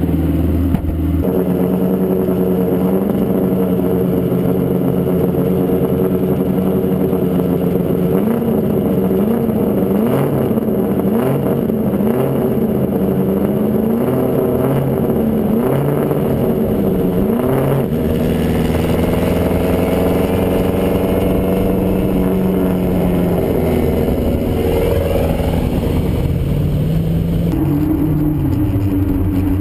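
The Ack Attack streamliner's twin turbocharged Suzuki Hayabusa engines running hard on a land speed record run, heard from the cockpit. The engine note rises and falls over and over through the middle, then settles into a steadier drone with the pitch climbing again near the end.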